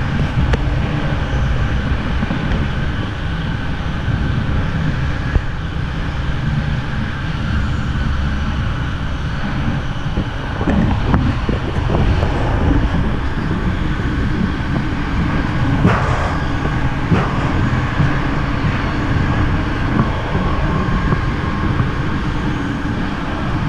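SBB Interregio train running, heard from inside the passenger car: a steady low rumble with a few sharp clicks and knocks scattered through it.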